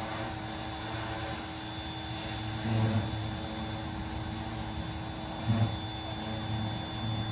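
Steady drone of a machine, which the filmer guesses may be some kind of wood chipper, with a few short, louder low surges, the strongest about three seconds in and about five and a half seconds in.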